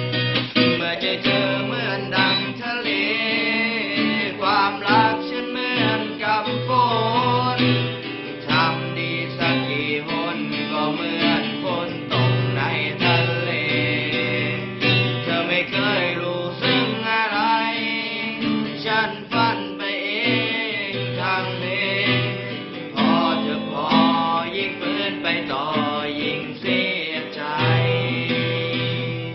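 Music: an instrumental passage of a song led by guitar, with a wavering melody line over a steady bass.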